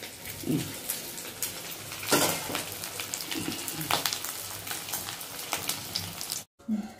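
Coated fish pieces deep-frying in hot oil in a wok: a steady sizzle dotted with sharp crackles and pops. It drops out abruptly for a moment near the end.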